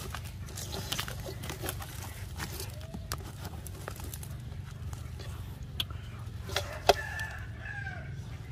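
Hands rummaging and scratching through shredded, fibrous palm-trunk pith, with scattered sharp clicks and taps, the loudest about 7 s in. A few short animal calls sound near the end.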